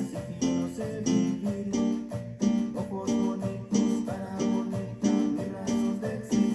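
A band rehearsing an instrumental passage: guitar chords struck in a steady rhythm of about two a second.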